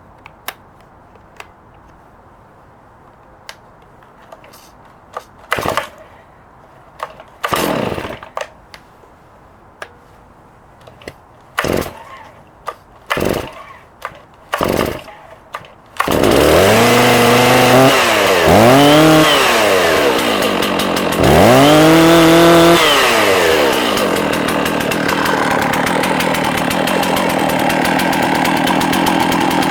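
STIHL MS660 two-stroke chainsaw being pull-started: a series of short bursts from the starter rope pulls against the saw's high compression, then it catches about halfway through. It is revved up and down three times, then runs steadily.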